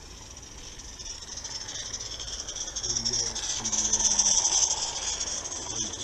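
A 16mm-scale live-steam locomotive passing with its train, its steam hiss building to a peak about four seconds in and then easing off.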